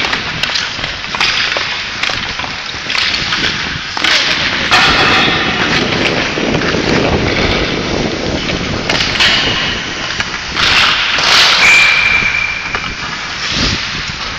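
Hockey skate blades scraping and carving on the ice, with repeated sharp clacks of sticks striking pucks and the boards. About twelve seconds in there is a brief high squeal.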